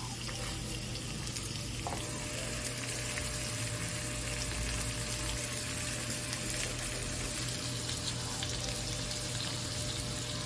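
Salmon frying in hot oil in a pan: a steady sizzle with fine crackles and pops.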